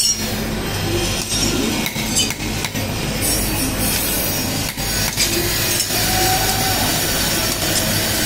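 Hand hammer striking a red-hot steel knife blade held in tongs on a steel anvil block: irregular light blows, most of them in the first half, over a steady low hum.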